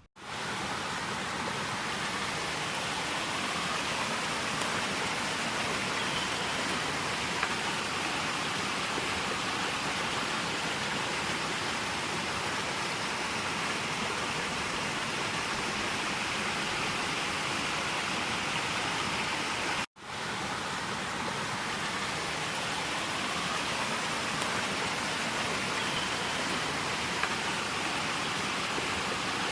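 Steady rush of a small waterfall on a stream, heard close up as an even, unbroken hiss of falling water. The sound cuts out for an instant about two-thirds of the way through, then carries on unchanged.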